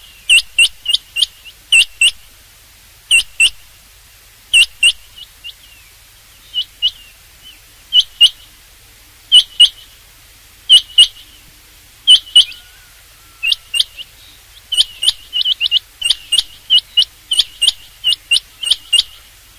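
Rain quail calling: sharp, high, clipped notes, mostly in pairs repeated about every second and a half, running into a quicker string near the end.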